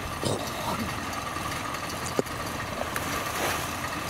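Machine engine running steadily at idle, with a thin steady whine over it and a single sharp knock a little after two seconds in.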